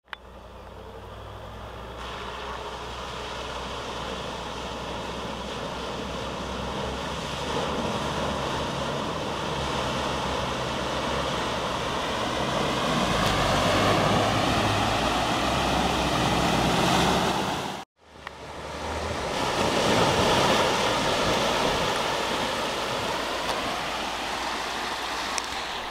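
4x4 vehicle driving through deep water: its engine running as the bow wave rushes and splashes around it. The sound grows louder as it comes closer, cuts out sharply for a moment about two-thirds of the way through, then slowly eases off.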